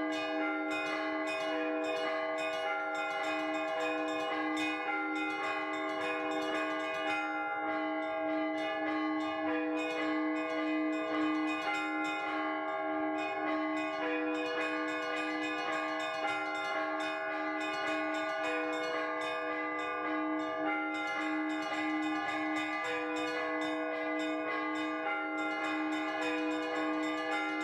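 Russian Orthodox church bells rung by hand in a trezvon, the full peal for vespers. A lower bell keeps up a steady, even beat beneath quick, changing patterns on the smaller, higher bells.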